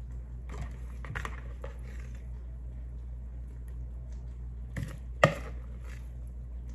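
Metal tablespoon scooping grated cabbage into a glass mason jar: a few soft scrapes and taps in the first two seconds, then a sharp knock about five seconds in. A steady low hum runs underneath.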